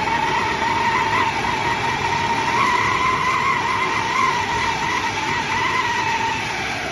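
Ground fountain firework (anar) spraying sparks, with a steady loud hiss and a shrill, slightly wavering whistle.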